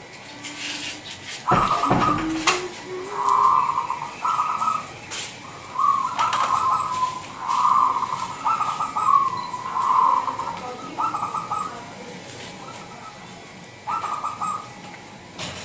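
Zebra dove (perkutut) singing its cooing song: a run of about a dozen short, rough coos over some ten seconds, then one more near the end. Two sharp knocks come about two seconds in.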